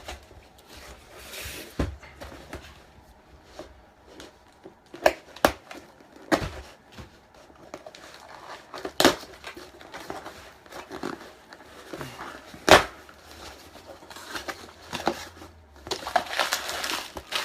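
Packaging being opened by hand: a scattering of sharp knocks and clicks with soft handling and rustling, which thickens near the end.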